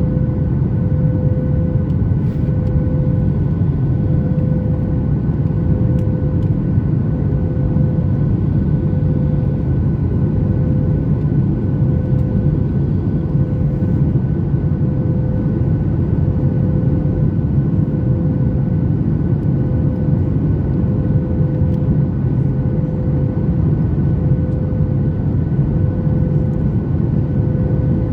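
Cabin noise of a Boeing 737 MAX 8 with its engines running: a loud, steady low rumble of engines and airflow, with a steady hum and a fainter higher whine over it.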